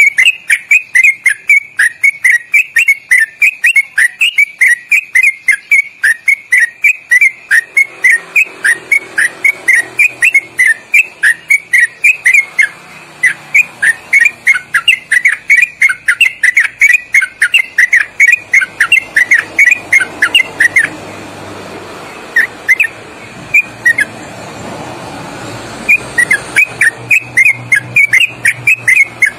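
Yellow-vented bulbul (trucuk) singing a long, fast rolling 'ropelan' song of rapid, clear whistled notes, several a second. The notes break off to a few scattered ones for several seconds past two-thirds through, then pick up again.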